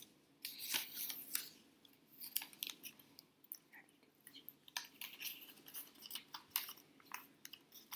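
Handwriting: a pen scratching across the writing surface in short, irregular strokes.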